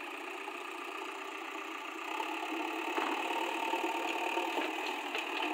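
JCB backhoe loader's diesel engine running steadily while the backhoe digs, getting a little louder from about two seconds in.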